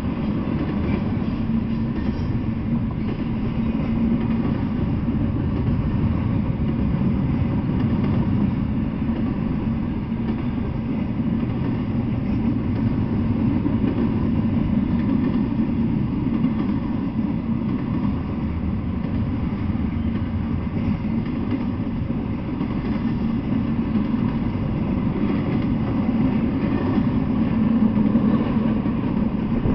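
Double-stack intermodal freight train rolling past: a steady low rumble of the well cars on the rails that holds without a break.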